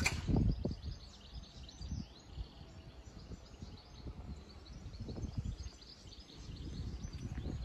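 Birds chirping over a low, uneven outdoor rumble, with the ring of the level crossing's last bell stroke fading away at the very start.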